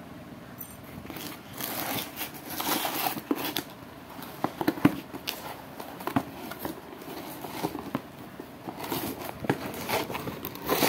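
Cardboard shipping box being opened by hand: irregular rustling, crinkling and tearing of cardboard and packing tape, with many short sharp clicks and taps, the loudest snap about halfway through.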